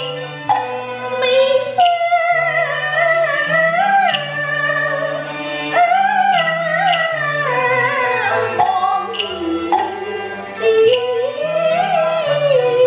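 A woman singing a Cantonese opera aria into a microphone, her voice sliding and wavering through long held notes, over instrumental accompaniment with a stepping bass line and sharp percussion clicks every second or so.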